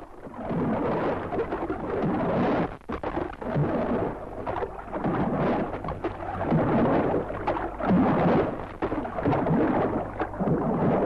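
Radio-drama sound effect of rough sea water washing around a small boat, surging and ebbing in repeated swells about every second and a half.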